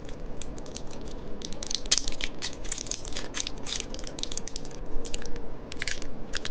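Candy being crunched close to the microphone: a dense, irregular run of sharp crackles.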